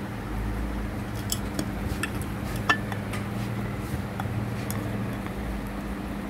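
Light metallic clinks and taps of tools and parts being handled on a Juki industrial sewing machine, with one sharper click about two and a half seconds in, over a steady low hum.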